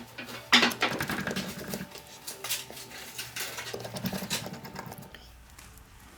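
Irregular clicks and taps of small hard objects being handled, with a sharp click about half a second in. The clicking thins out after about five seconds.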